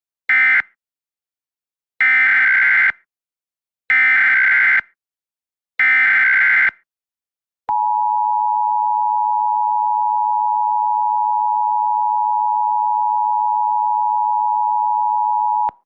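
Emergency Alert System tones. A short screech of end-of-message data comes first, then three one-second bursts of SAME header data. From about halfway through, the steady EAS attention tone holds for about eight seconds and cuts off abruptly just before the end.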